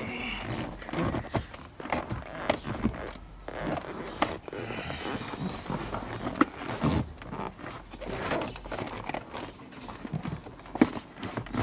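Hands working the plastic center console trim and parking brake boot loose around the handbrake: irregular clicks, taps and rustling, with a couple of louder clicks near the end.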